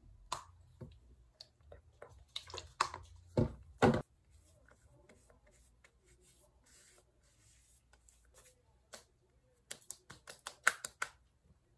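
A few clicks and knocks of a small skincare bottle being handled in the first four seconds, the loudest two close together just before the fourth second. About ten seconds in comes a quick run of light slaps: palms patting skincare into the face.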